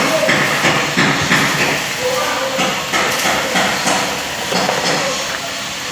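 Irregular clicks and knocks of small metal parts of a seatbelt retractor being worked by hand while a pin is fitted back in, over a steady background hiss.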